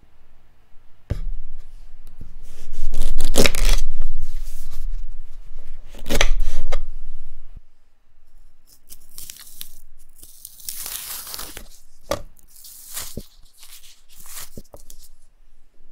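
Ripe lady finger banana skins being cut with a kitchen knife and torn away in a series of tearing strokes. The loudest stretch is in the first half, and lighter, hissing strips of peel follow.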